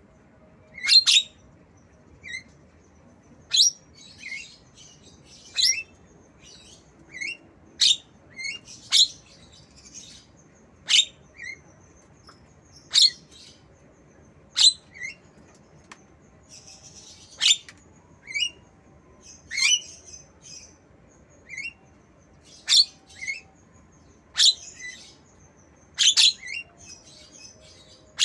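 Javan myna mimicking a lovebird: short, shrill, high chirps repeated every second or two, each often followed by a quick lower note.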